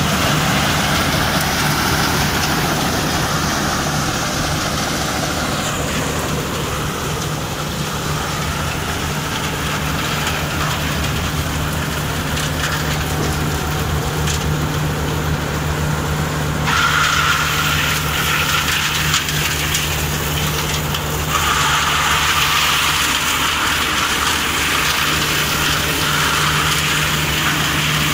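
Claas Crop Tiger 40 combine harvester running under load while threshing: a steady engine note under a rush of noise from the threshing gear and the straw blowing out the back. The rushing noise gets louder just past halfway and again about three-quarters of the way through.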